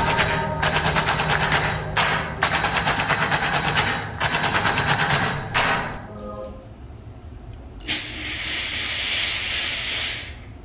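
A fast mechanical rattle, about six pulses a second, in three runs of about a second and a half each, then a hiss of about two seconds near the end.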